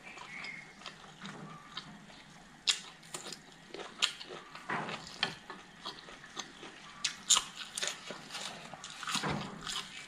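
Close-up eating sounds: wet chewing and lip smacks, broken by sharp irregular clicks and smacks as food is eaten by hand.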